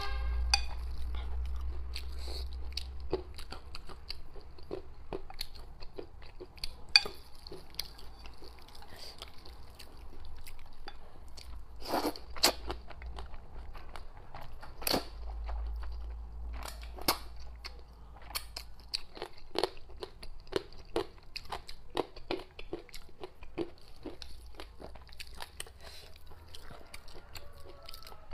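Close-miked eating of thick, saucy Nanchang mixed rice noodles: slurping and chewing, with many small wet clicks and smacks and a few louder slurps in the middle.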